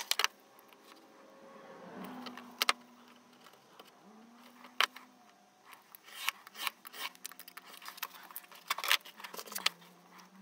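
Light clicks, taps and scrapes of a small steel rule and bookbinding board being handled on a cutting mat, with a few sharper clicks as the rule and board are set down and shifted.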